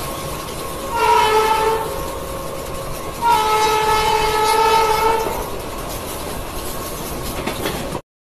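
Indian Railways train running through a station, heard from an open coach doorway: steady wheel and running noise, with the locomotive horn sounding twice, a short blast about a second in and a longer one of about two seconds starting a little after three seconds. The sound cuts off suddenly near the end.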